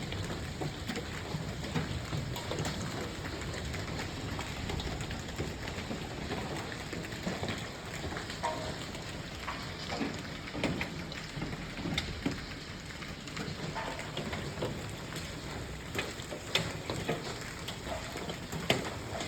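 Hailstorm: a steady hiss of falling hail and rain, dense with sharp hailstone impacts, with a few louder cracks near the end.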